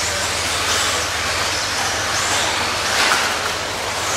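Radio-controlled 2WD race buggies running on a dirt track: a steady hiss with high motor whines rising and falling as the cars speed up and slow down, over a low steady hum.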